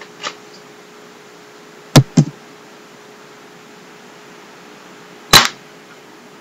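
Spring-powered Smith & Wesson airsoft pistol with a suppressor firing two shots at a paper target. About two seconds in there are two sharp cracks close together, and about five seconds in there is one sharp crack; a faint click comes just after the start.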